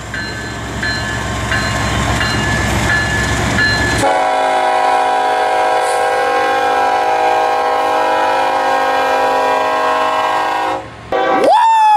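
Diesel freight locomotives rumbling past for the first few seconds. Then a multi-chime train horn sounds a long steady chord for about seven seconds. Near the end a brief horn note rises and falls in pitch.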